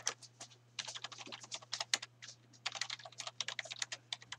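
Typing on a computer keyboard: quick runs of key clicks with brief pauses between them, over a faint steady low hum.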